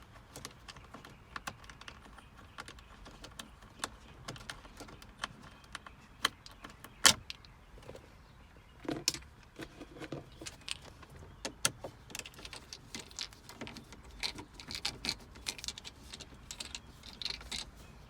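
Phillips screwdriver turned by hand in dashboard trim screws: scattered small clicks, taps and scrapes of metal and plastic, with one sharper click about seven seconds in.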